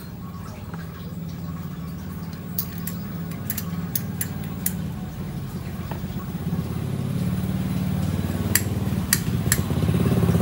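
Honda Tiger's single-cylinder four-stroke motorcycle engine, fitted with a PWK 35 carburettor, running at idle, growing louder in the last few seconds. A few light metallic clicks sound over it.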